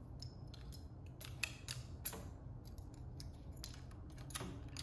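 Scattered small, sharp plastic clicks and taps of keycaps and switches being pulled from a mechanical keyboard's number pad and set down, a cluster about a second in and another near the end.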